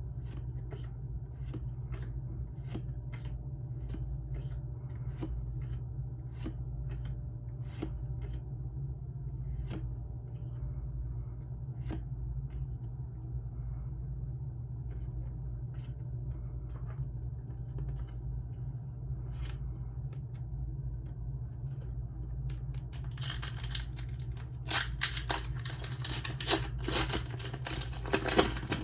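Steady low hum with scattered light clicks of cards being handled, then, about 23 seconds in, several seconds of loud crinkling and tearing of a wrapper being opened.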